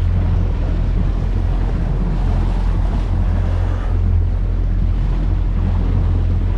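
Strong wind buffeting the microphone as a steady low rumble, over the wash of choppy water against a bass boat's hull.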